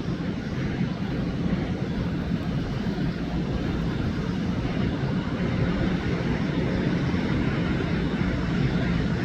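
Airplane flying over: a steady rushing engine noise with no distinct tone, growing gradually louder.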